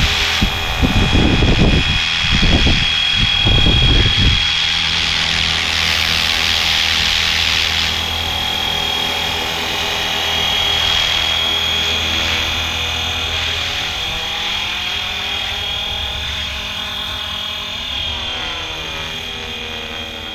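FlyWing FW450L V3 electric RC helicopter in flight: its motor and rotor make a steady high whine over a lower buzz, with low rumbling in the first few seconds. The pitch wavers slightly and the sound fades gradually over the second half as the helicopter moves farther off.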